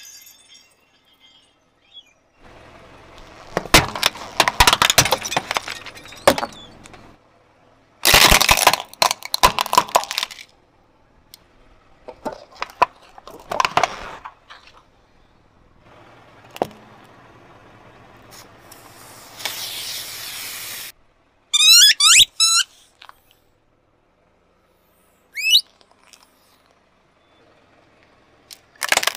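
Car tyre crushing a series of objects: several separate bouts of crackling and crunching, each a few seconds long. Near the three-quarter mark come a few quick high squeaks that rise in pitch, then one more a few seconds later.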